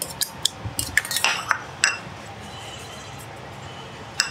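Long metal spoon clinking against a steel bowl and stirring lassi in a plastic jug: a quick run of clinks in the first two seconds, then a single clink near the end.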